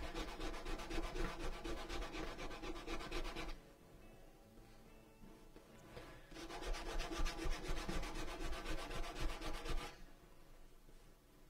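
A blue sanding stick rubbed back and forth in quick, even strokes along the edge of a leather strap, sanding the edge smooth. There are two bouts of strokes, each about three and a half seconds long, with a pause of a few seconds between them.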